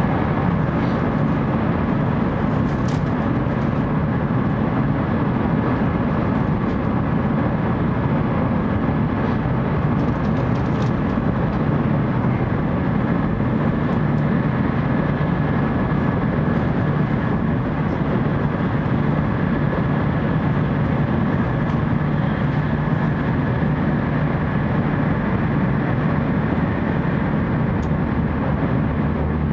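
Steady cabin noise inside a 700 series Shinkansen car while the train runs: an even rumble and rush with a faint steady whine above it, and a few faint clicks.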